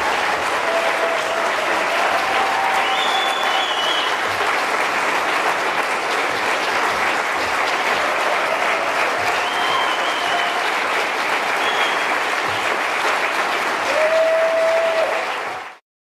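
Large audience applauding steadily, with a few brief cheers on top. The applause cuts off suddenly near the end.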